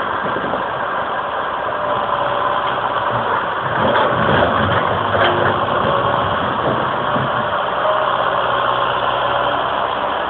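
Komatsu hydraulic excavator's diesel engine running steadily as it works boulders in a riverbed, with a couple of knocks about four and five seconds in.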